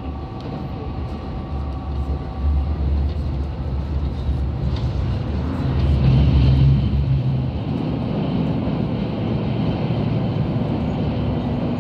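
On-board running noise of a KiHa 187 series diesel railcar at speed: the steady drone of its diesel engine, mixed with wheel and rail noise. A higher whine fades out about three seconds in, and the noise swells for a moment around six seconds in.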